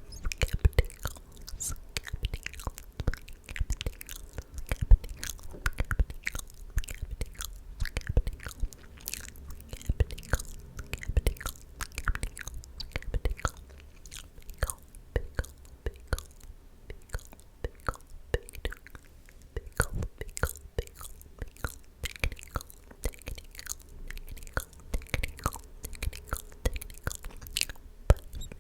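Close-miked ASMR mouth sounds: rapid, irregular wet clicks and smacks of lips and tongue.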